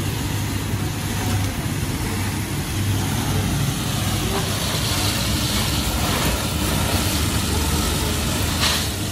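Drum-type peanut roasting machine running with a steady low hum while roasted peanuts pour from the turning drum down a metal chute in a continuous stream, with metal scoops scraping through the nuts and one short sharp scrape near the end.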